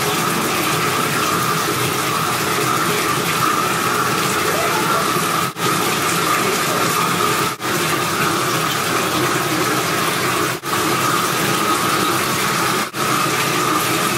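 Water running steadily from a bathtub tap into the tub, an even rushing noise that cuts out for a split second four times.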